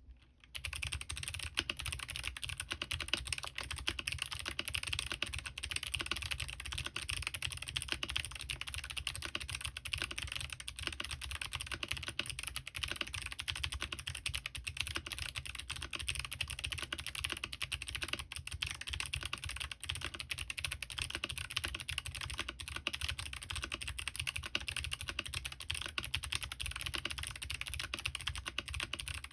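Fast, continuous typing on a Smurve80 mechanical keyboard with clicky Kailh Box Jade switches, Signature Plastics DCS keycaps and an aluminium plate without foam, a dense run of sharp key clicks starting about half a second in.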